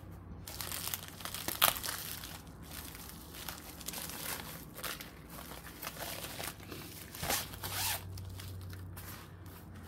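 Clear plastic wrapping on a rolled diamond painting kit crinkling and rustling as it is handled and opened, in irregular short spells, with the sharpest crackle about a second and a half in.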